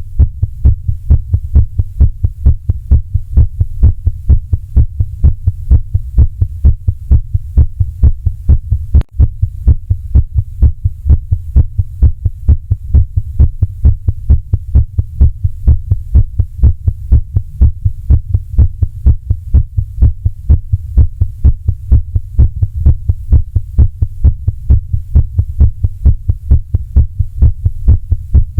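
Recording of a heartbeat: loud, fast, regular low beats over a steady low hum, with a brief dropout about nine seconds in.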